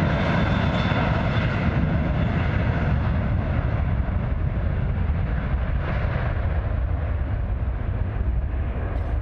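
Jet airliner's engines, a loud steady rumble and hiss, with the higher hiss slowly fading over the seconds.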